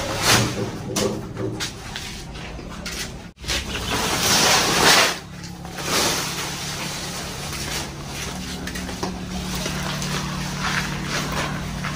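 Woven plastic sacks of rice seed being lifted, shifted and handled, giving loud rustling and scraping in several bursts. A low steady hum runs underneath from about halfway.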